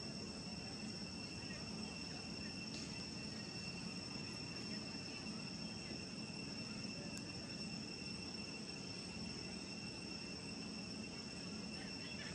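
Steady high-pitched insect drone, an unbroken buzzing tone, over low, even background noise.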